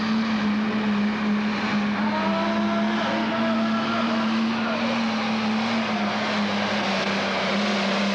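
Pro Stock pulling tractor's turbocharged diesel engine running hard while pulling the weight sled, a loud, steady deep note whose pitch dips slightly about six seconds in.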